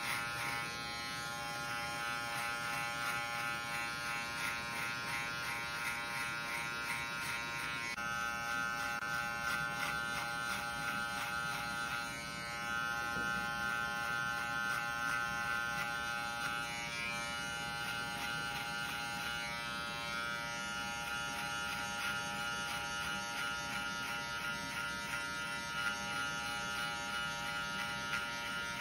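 Electric hair clipper fitted with a plastic guide comb, running with a steady buzz as it cuts short hair on the back and side of a man's head.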